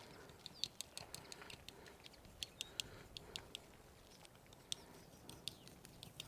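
Faint, irregular light clicks and ticks, a couple dozen of them, sharp and high-pitched, over quiet outdoor background noise.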